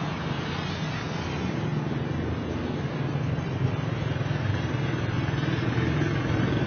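A car driving along, its engine and road noise running steadily and growing slowly louder.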